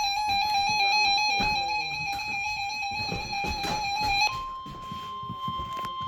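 Emergency alert signalling: a buzzy electronic tone that warbles rapidly between pitches, replaced about four seconds in by a steady single-pitch alarm tone. The steady tone is the weather-radio warning alert tone that comes before a spoken severe thunderstorm warning.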